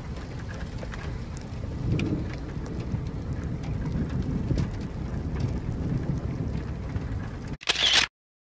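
Wind buffeting an outdoor microphone: a steady low rush with faint scattered ticks. Near the end a brief dropout, a short loud burst of noise, and then the sound cuts to dead silence.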